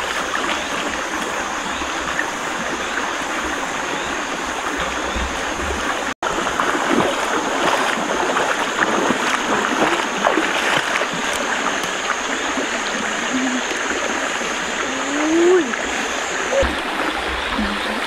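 Shallow stream running over rocks: a steady rush of water, broken for an instant about six seconds in.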